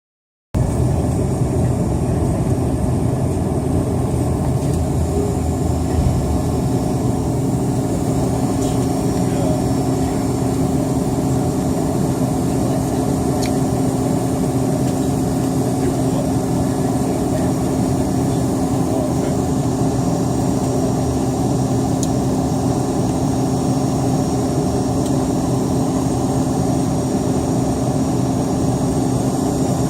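Airplane cabin noise: the aircraft's engines running at a steady pitch with a constant hum, with no rise in power.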